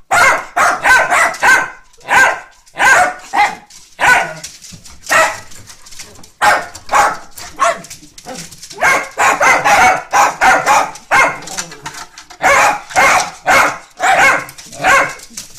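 Long-haired dachshunds barking excitedly in quick runs of short, loud barks with brief pauses between, a homecoming greeting.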